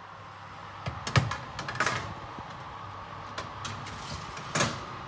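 A metal baking tray slid onto the rack of a hot oven, knocking and scraping against the rack a few times, the loudest knocks about a second in and again near the end. Underneath runs the steady whir of the preheated oven's fan through the open door.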